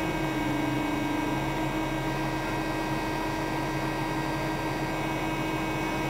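Steady drone inside a moving double-decker city bus: engine and ventilation hum with a few held tones, no sudden sounds.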